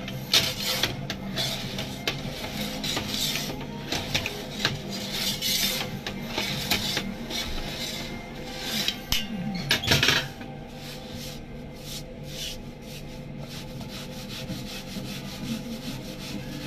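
Rough scraping and rubbing strokes of a tool worked by hand, repeated for about ten seconds, then fading to light ticks. A steady low hum from kitchen equipment runs underneath.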